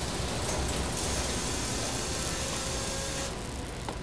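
Intro sound design: a low rumble under a steady hiss, with a brighter hiss coming in about a second in and cutting off near the end.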